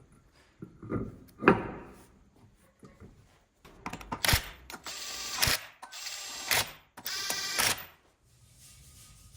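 Cordless impact wrench run in three short bursts after a few metallic clanks.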